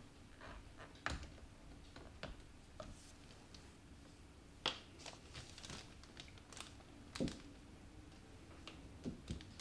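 Quiet room tone with a few scattered small clicks and taps. The two loudest come about halfway through and about two-thirds through, with a small cluster near the end.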